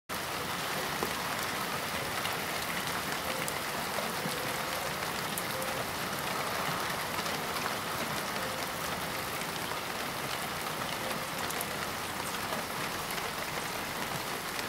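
Steady rain falling on parked cars: a constant hiss with scattered sharp drop hits.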